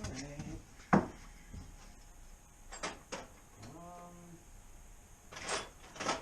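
Metal hand tools clinking and knocking as a toolbox drawer is opened and sockets and extensions are rummaged through, with one sharp metal knock about a second in and more clanks near the end.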